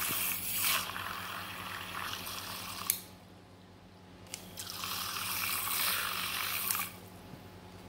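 Small battery-powered milk frother spinning its wire whisk in water in a glass mug, the water churning and swishing. It runs in two spells: one ends with a click about three seconds in, and after a pause of about a second and a half a second spell runs until shortly before the end.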